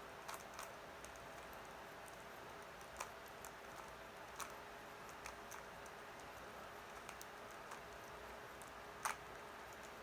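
Plastic Rubik's Cube layers being turned with one hand: scattered soft clicks, with one louder click about nine seconds in, over a faint steady hiss.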